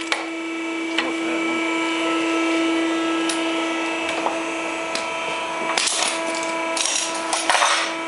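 Hydraulic wire-rope crimping press running: a steady pitched motor-and-pump hum that grows louder over the first couple of seconds, with a few sharp clicks and, near the end, several short bursts of hiss.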